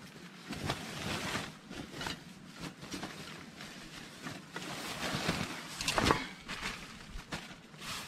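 Irregular rustling and small knocks of camping gear being handled and rummaged through, the loudest about six seconds in, over a steady rush of flowing river water.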